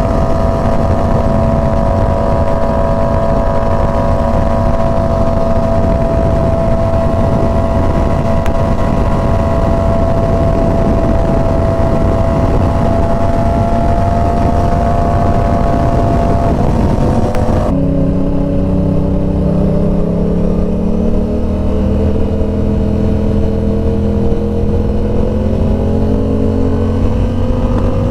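Inline-four sport-bike engine at steady highway speed with wind rush. About two-thirds of the way in, the pitch drops suddenly, as at a gear change, then climbs slowly as the bike pulls again.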